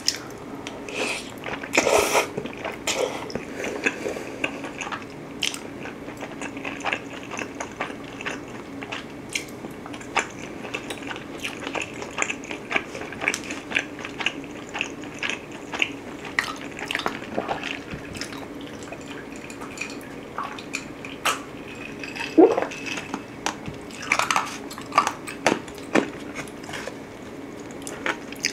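Close-miked chewing of cheese-baked spaghetti: a steady run of wet, sticky mouth clicks, with a few louder bites.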